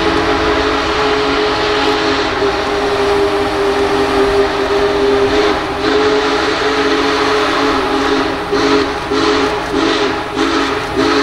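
Union Pacific Big Boy No. 4014 steam locomotive's chime whistle blowing a long, steady, loud blast. Over the last few seconds the sound breaks into a rhythmic pulsing about twice a second.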